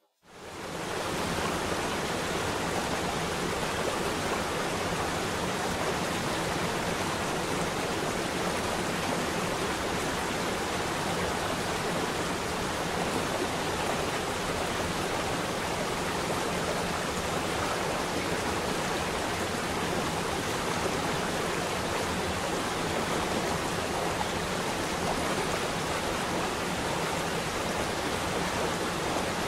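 Small waterfall spilling down a rock face: a steady, even rush of falling water and spray.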